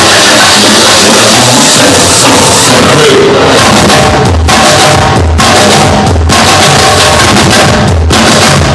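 Loud music with a drum kit. From about three seconds in, a steady bass-drum beat runs under it, broken by a few short stops.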